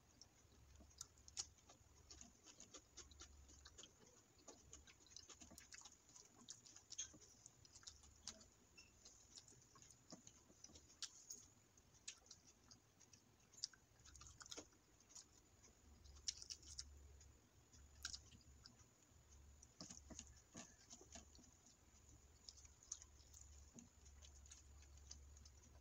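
Faint chewing and wet mouth smacks of a person eating biryani and chicken curry by hand, with many soft scattered clicks as fingers mix the rice and curry.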